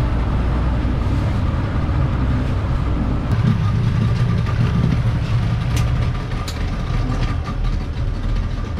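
Motorboat engine running steadily as the boat motors along a river, a little louder for a few seconds in the middle.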